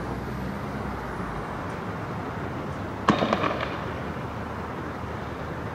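A firework going off about three seconds in: one sharp bang followed by a quick run of crackling pops lasting about half a second, over steady street noise.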